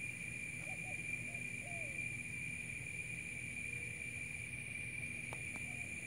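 Steady high-pitched drone of insects in the brush, with a low steady hum underneath. A few faint short bird calls come about a second in and again near the end, and two sharp clicks sound near the end.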